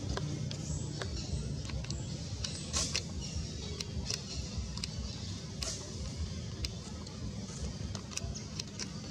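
A steady low rumble with irregular sharp clicks and ticks scattered over it, a few a second.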